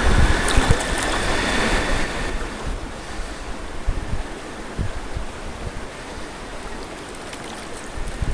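Steady whirr of a spinning reel being cranked for about the first two seconds, with a few clicks, then stopping. Wind buffets the microphone throughout, over a hiss of moving water.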